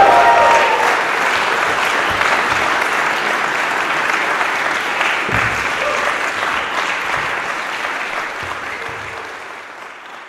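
Audience applauding steadily after a cello trio performance, the clapping fading out near the end.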